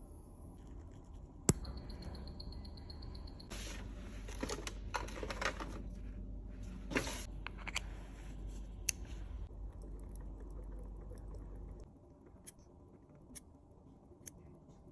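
Small sharp clicks, taps and scrapes of hands and small tools working on a wristwatch, with a low steady hum from about three and a half to twelve seconds in.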